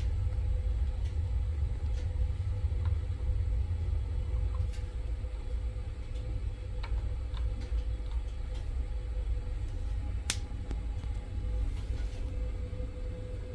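Gas water heater's main burner running with a steady low rumble, a faint hum and a few faint clicks over it.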